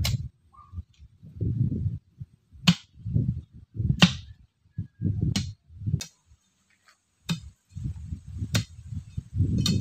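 Sharp metal strikes repeated about every one to one and a half seconds, with dull low thuds between them: hand tools striking during work on a post.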